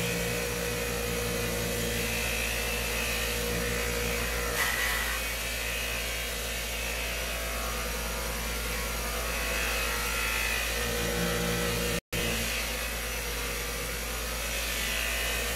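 Bench grinder running with a buffing wheel as a golf iron's head is pressed against it: a steady motor hum under the hiss of the wheel buffing the metal. The sound cuts out for an instant near the end.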